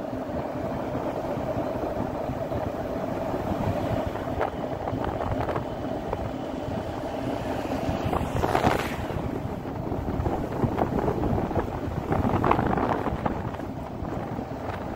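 Engine and road noise of a moving vehicle, with wind buffeting the microphone. It runs steadily, with a brief louder rush about eight and a half seconds in.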